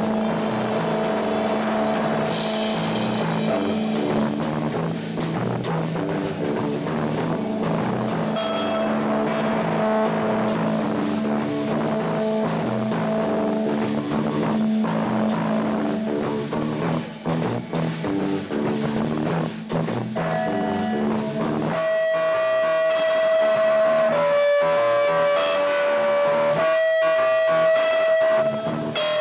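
Live band playing on electric guitars: a steady droning note under dense, rhythmic guitar playing, giving way about two-thirds of the way through to long held notes that step between two pitches.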